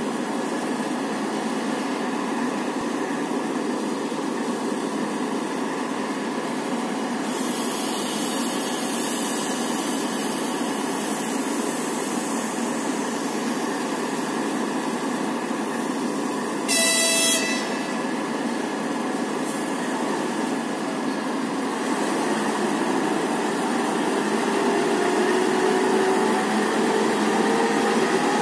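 TEP70BS diesel locomotive running steadily, with a stretch of hissing air about a third of the way in. Just past halfway comes one short horn blast, the departure signal. In the last few seconds the engine note rises with a climbing whine as it throttles up and the train starts to move.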